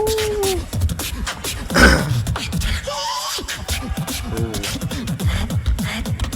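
Solo beatboxing: a fast, dense run of deep kick-like bass strokes and sharp clicks, with a short held vocal tone at the start, a loud hissing burst about two seconds in, and a brief rising pitched sound a second later.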